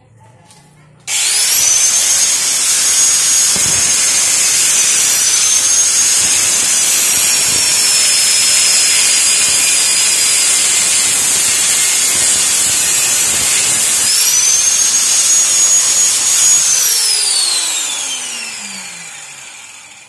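Corded angle grinder starting up and cutting into the steel shell of a refrigerator compressor: a loud grinding hiss with a high motor whine that sags under load. Near the end the whine rises briefly, then falls steadily as the grinder is switched off and the disc spins down.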